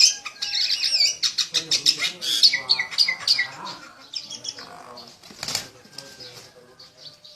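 Wings flapping in rapid strokes as a rooster and a small bird fight, mixed with high-pitched squawking calls. It is busiest over the first three seconds or so, then eases off, with one more sharp flap about five and a half seconds in.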